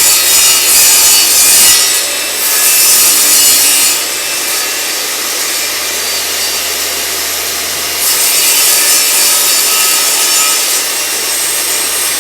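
A saw cutting through a wooden board: a loud, steady cutting noise that eases off about four seconds in and grows loud again about eight seconds in.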